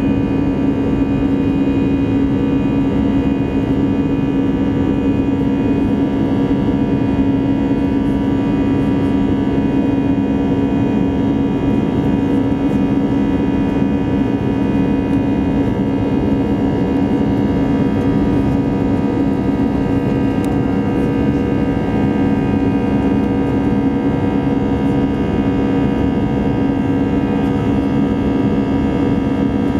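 Airbus A320 jet engines and airflow heard from inside the cabin during the climb after takeoff: a steady drone with a strong low hum and several steady whining tones above it.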